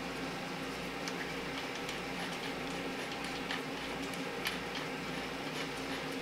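Light metallic clicking of a socket ratchet, in short irregular runs, as a bolt on the rear main seal cap of a Chrysler 383 big-block is run down by hand. Under it is a steady low hum.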